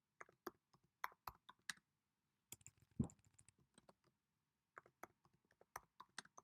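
Typing on a keyboard: faint, irregular keystroke clicks in quick runs, with one heavier keystroke about three seconds in.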